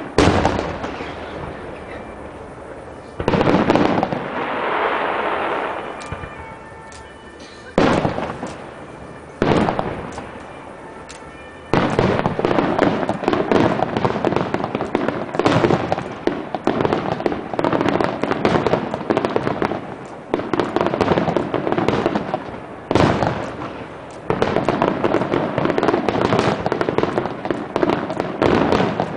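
Aerial fireworks display: shells bursting with booms that echo away, a few spaced several seconds apart, then from about twelve seconds in a dense barrage of bursts and crackle.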